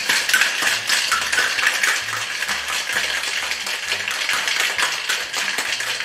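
Ice cubes rattling hard inside a Boston cocktail shaker (steel tin over a mixing glass), shaken vigorously and without pause. It starts abruptly as the shaking begins.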